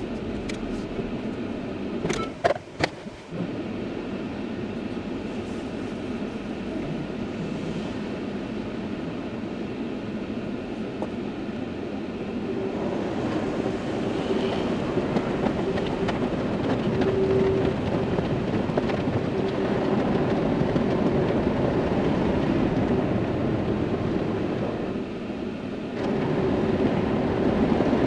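Heard from inside a car's cabin: a steady low rumble with a few sharp clicks about two to three seconds in. From about twelve seconds in, the louder rushing of an automatic car wash's water spray and machinery working over the car, with a steady hum under it.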